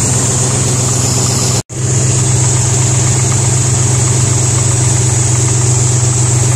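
International Harvester 345 V8 idling steadily while warming up, a short while after first being run again with a broken pushrod replaced. The sound cuts out for an instant about a second and a half in, then the idle carries on unchanged.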